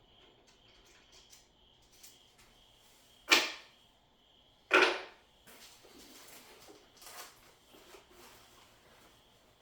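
Packaging being handled: two short, loud scraping or tearing noises about a second and a half apart, with quieter rustling and small knocks around them.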